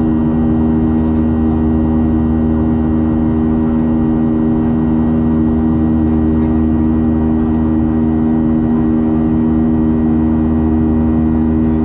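Steady drone of a Boeing 737's turbofan engines heard from inside the passenger cabin in flight: a constant low rumble with several steady humming tones that do not change.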